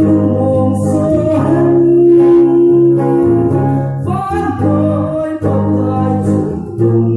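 A man singing a song with electric guitar accompaniment, amplified through a PA system. He holds long sung notes over a steady low bass line.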